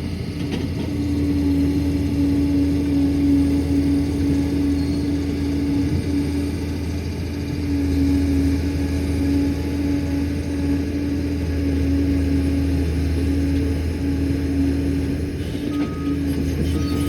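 Liebherr PR 746 crawler dozer's diesel engine running steadily under work, its low drone and hum rising and easing a little. Two short high beeps sound near the end.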